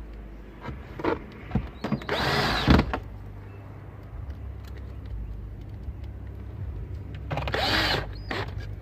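Cordless drill-driver whirring in two short runs of about a second each, its pitch rising and falling as it spins up and down, with a few sharp clicks of handling parts before the first run.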